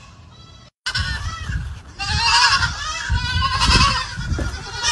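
A chorus of baby goats bleating, many high, wavering calls overlapping, loud after a brief dropout just under a second in. Dull low thumps run beneath the calls.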